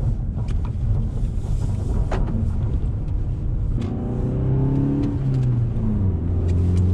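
Inside the cabin of a 2014 Volkswagen Golf GTI (Mk7): a steady low rumble of engine and tyres with a few light clicks. From about four seconds in, the car's 2.0-litre turbocharged four-cylinder engine rises and drops in pitch as the car accelerates.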